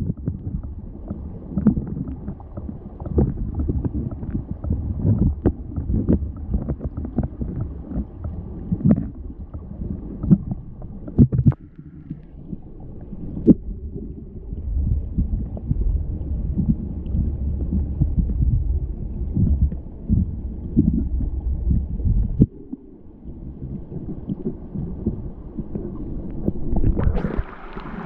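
Small forest stream heard from a submerged camera: a muffled low rumble and gurgle of flowing water with scattered clicks and knocks. Near the end the sound turns brighter and hissier as the microphone comes up into open air over the running water.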